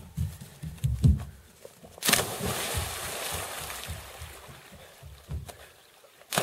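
Bare feet thudding on wooden dock planks, then a person jumping into lake water with a big splash about two seconds in, the splashing dying away over a few seconds. A second jumper hits the water with another splash at the very end.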